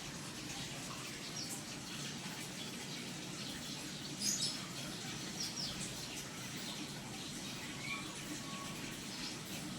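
Small birds chirping in short, scattered calls over a steady trickle of pond water. The loudest chirp comes about four seconds in.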